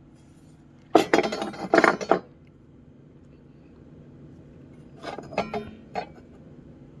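Metal hand tools clinking and clattering as they are handled, in two bursts: a loud one about a second in and a shorter run of clicks around five seconds in.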